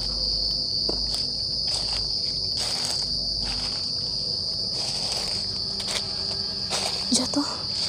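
Steady high-pitched chirring of night insects in a forest, with scattered rustling of footsteps in dry leaf litter.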